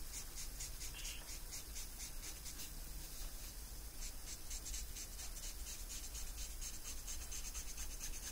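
Brush nib of a Copic alcohol marker scratching on paper in quick back-and-forth colouring strokes, several a second. The marker is running dry.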